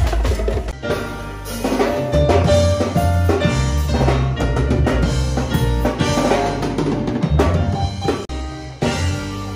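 Live band playing an upbeat groove: a drum kit with cymbals and hand drums keeps the beat under electronic keyboard chords and a moving bass line.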